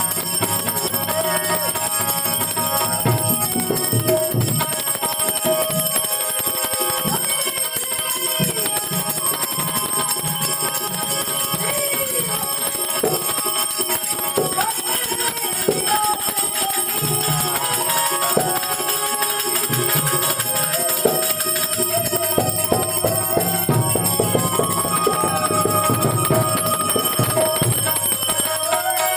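Harmonium playing a melody of held reed notes in Gujarati santvani devotional folk music, with percussion strokes beating along and no singing.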